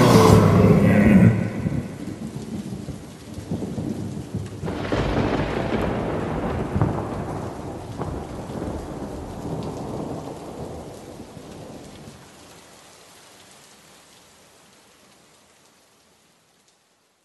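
Synth music cuts off about a second in, leaving rain and a rumble of thunder. The thunder swells about five seconds in, then everything slowly fades out to silence.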